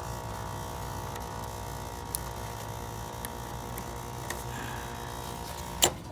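Heat pump outdoor unit humming steadily in its defrost cycle, with a few faint ticks and one sharp click near the end.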